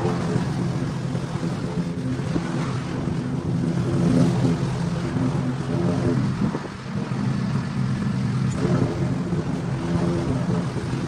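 Small petrol engine running steadily, with a brief dip in level about seven seconds in.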